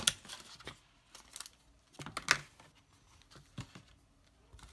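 Clear plastic packaging tray and paper insert cards being handled as they come out of a box: a scatter of sharp plastic clicks and crinkles, the loudest just over two seconds in.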